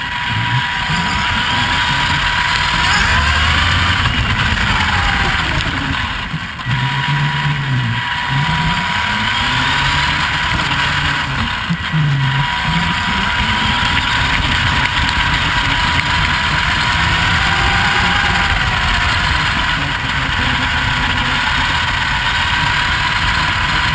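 Vaterra Twin Hammers RC rock racer driving over gravel, heard from a camera riding on the truck. Its electric motor and gears whine, rising and falling in pitch again and again with the throttle, over a steady rumble of tyres and wind.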